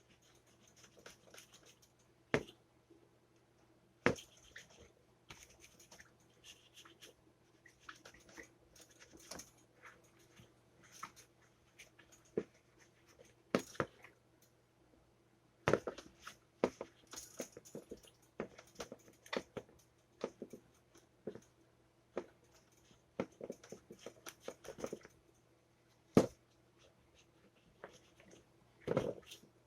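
Irregular clicks, taps and knocks of small hard toaster parts being handled during repair, with a few brief scraping sounds between them, over a faint steady hum.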